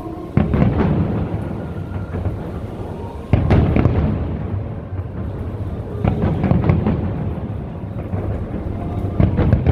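Large aerial firework shells bursting with deep, rumbling booms: four heavy bursts about three seconds apart, with crackling between them. Music plays underneath.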